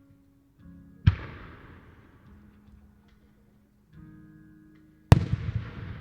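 Two 5-inch (No. 5) aerial firework shells bursting overhead, about four seconds apart: each a sharp boom with a rolling echo that fades, the second louder.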